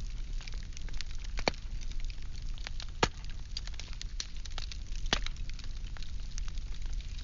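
Firewood burning, crackling with many scattered sharp pops over a steady low rumble. Louder pops come about one and a half, three and five seconds in, the one at three seconds the loudest.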